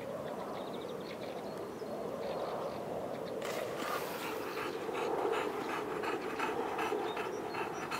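Boxer dog panting hard, out of breath from running, with quick rhythmic breaths of about three a second that become distinct about halfway in.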